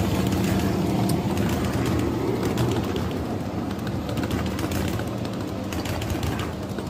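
Ride-on scale model train rolling past on its track: a steady low rumble and hum with a run of wheel clicks, fading a little toward the end.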